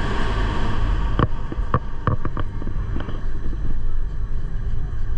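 Gornergrat Bahn electric rack-railway train running, with a steady low rumble. A hiss in the first second gives way to a quick run of clacks.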